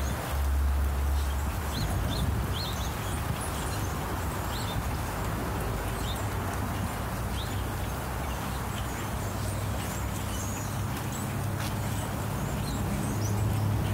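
A large flock of blackbirds calling together: a dense chatter of many overlapping calls with scattered high chirps, over a low steady rumble.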